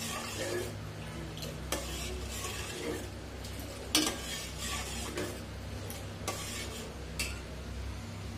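Metal ladle stirring milk in a steel pot on a gas stove, scraping and clinking against the pot a few times, the sharpest clink about four seconds in, over a steady low hum. The milk is being boiled down to thicken it for yogurt.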